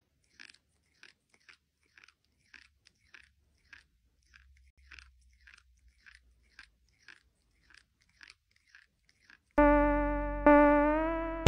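Faint, regular crunching, about two crunches a second, like something being chewed. Near the end a loud synthesizer note comes in, then fades away.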